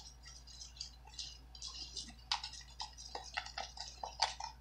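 Glue slime mixture being stirred in a plastic bowl: a run of small, irregular clicks and taps as the utensil works the sticky mix against the bowl.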